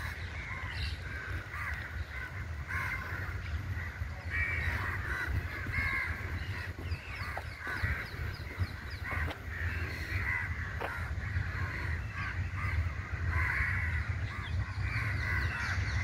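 A flock of house crows cawing, with many short calls overlapping one another, over a steady low rumble.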